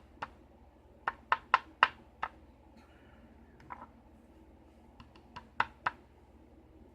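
Sharp small clicks and taps from handling a disassembled pin-tumbler lock cylinder and its pins: one tap at the start, a quick run of five about a second in, one more midway, and four near the end.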